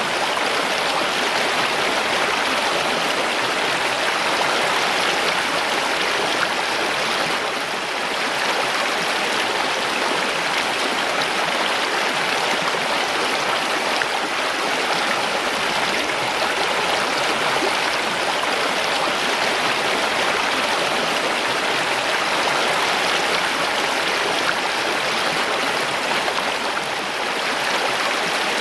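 Mountain stream rushing and babbling over rocks, a steady dense flow of water.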